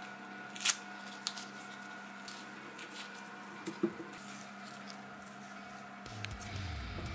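Masking tape and paper being handled, torn and trimmed with a utility knife blade: faint crinkling and rustling with a few sharp clicks, the sharpest a little under a second in.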